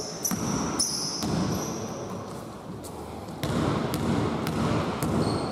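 Basketball bouncing on a hardwood court several times, with short high sneaker squeaks in the first second or so.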